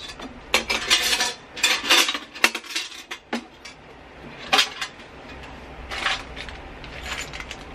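A hard plastic case being handled and opened, with a run of sharp plastic clicks and clatters and small loose items, including coins, rattling inside.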